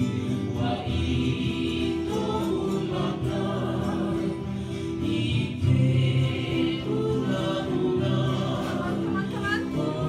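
Music with a choir singing over sustained chords.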